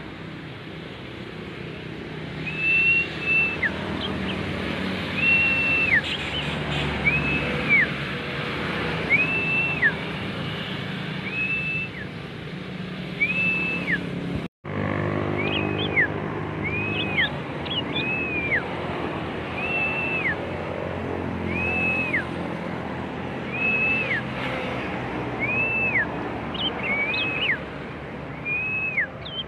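Young prinia (prenjak) practising its song: a short, high, arched whistle note repeated about every one and a half to two seconds, with a few sharper high chirps in between. A steady low rumble runs underneath, and the sound drops out for an instant about halfway through.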